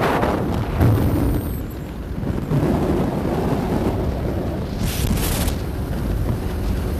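Heavy wind buffeting on a phone's microphone held out on a moving motorcycle, with the low rumble of the ride underneath and a brief hiss about five seconds in.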